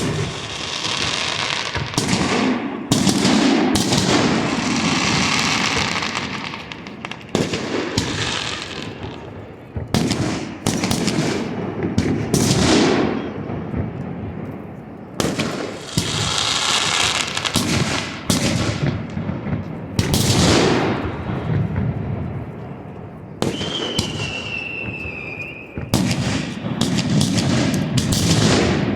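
Aerial fireworks bursting over a lake: repeated sharp bangs, many followed by crackling showers that run on for several seconds. A falling whistle sounds about two-thirds of the way through.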